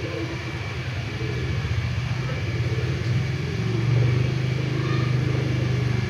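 An engine running steadily with a low, pulsing rumble that grows louder about four seconds in.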